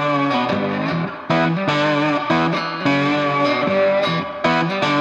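Background music: electric guitar chords with distortion, played in a steady rhythm.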